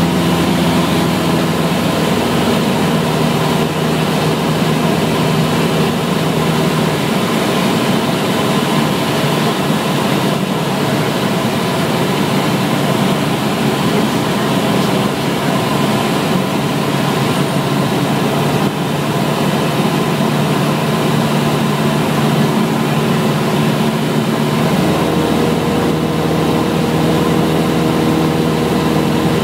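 Cessna's piston engine and propeller droning inside the cockpit over a steady rush of air. The engine's tone fades into the wind noise a few seconds in and comes back clearly near the end.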